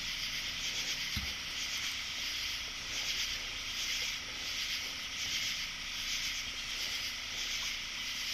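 Night chorus of crickets and other insects, a steady shrill hiss that swells and fades slowly, with a faint steady hum under it and one soft low thump about a second in.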